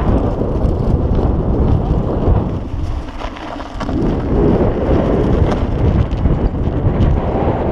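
Strong wind buffeting the microphone in a loud, gusting low rumble, easing for a moment about three seconds in before building again.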